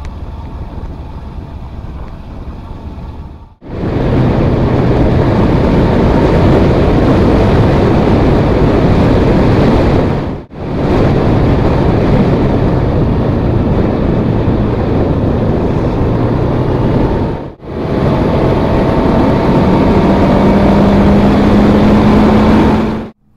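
Wind rushing over the microphone of a moving vehicle on the road, with a faint engine note underneath. It is quieter for the first few seconds, then loud. It breaks off abruptly three times, about 4, 10 and 18 seconds in.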